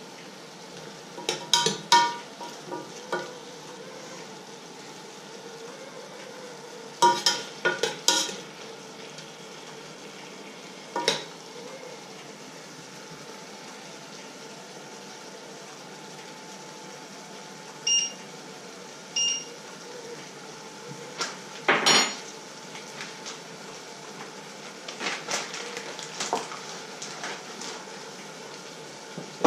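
Metal spoon clinking against the sides of a stainless steel pot during stirring, in short bursts of clinks with pauses between, the loudest run about two-thirds of the way through. Two short electronic beeps come between the bursts.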